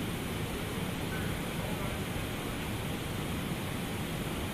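Steady rushing, hissing factory noise, even and unbroken, with faint traces of voices under it.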